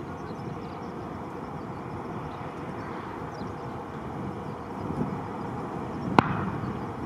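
Steady low rumble of airport ambience, with one sharp click about six seconds in.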